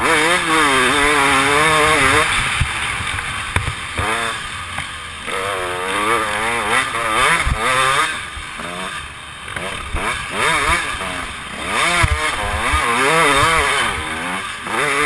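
Dirt bike engine heard from the rider's helmet, revving up and down again and again as the throttle is worked, over a steady rush of wind on the microphone.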